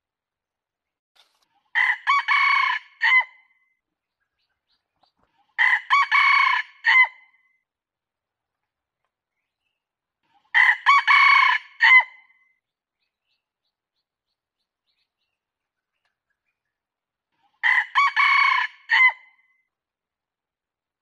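Red junglefowl rooster crowing: four short, clear crows spaced several seconds apart, each a quick opening note, a longer middle and a clipped last note. This is a lure call for drawing in wild junglefowl.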